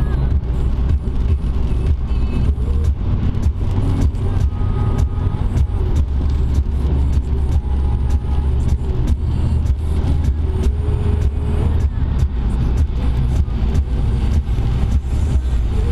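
Car driving on a wet highway, heard from inside the cabin: a steady, loud low rumble of road and engine noise, with frequent small clicks and ticks throughout.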